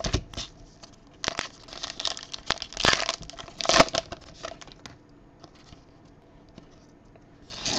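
Plastic trading-card pack wrapper being torn open and crinkled by hand. A run of crackling rustles fills the first half, with the sharpest ones a little before four seconds in, then softer handling of the cards, and a brief rustle at the very end.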